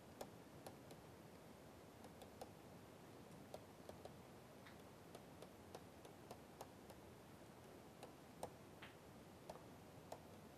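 Faint, irregular ticks and taps of a stylus on a pen tablet during handwriting, over a low steady hiss.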